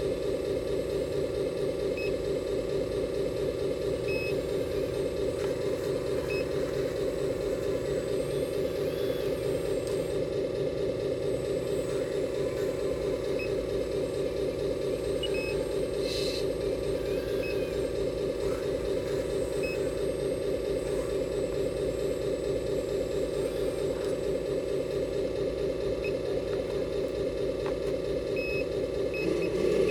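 Small electric motor and pump of an RC model excavator running with a steady, even hum while the machine digs. The pitch shifts right at the end.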